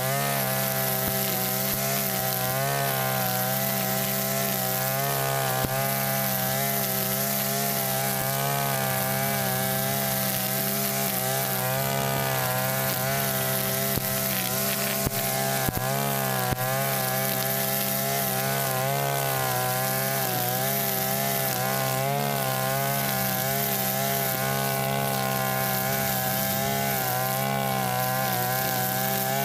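Mitsubishi backpack brush cutter running steadily with its nylon-line head cutting grass; the engine note wavers a little as the line meets the grass. A few sharp ticks sound about halfway through.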